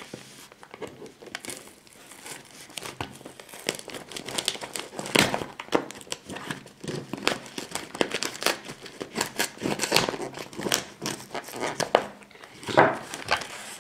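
Packing tape on a cardboard shipping box being slit with a knife and peeled back, with crinkling of the tape and paper wrapping: a run of irregular crackles, scrapes and small rips.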